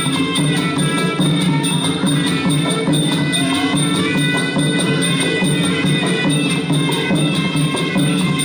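Traditional Khmer boxing ring music: a high reed-pipe melody held over drums and small cymbals keeping a steady beat.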